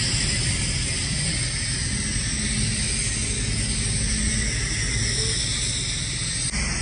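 Pressure washer spraying a concrete walkway: a steady high hiss of the water jet over the low running drone of the washer's motor. The sound shifts abruptly near the end.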